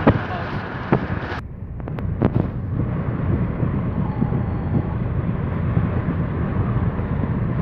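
Moving car: loud wind rush against the microphone for the first second or so, then, from an abrupt change, the steady low road rumble heard inside the closed cabin, with a few faint clicks soon after the change.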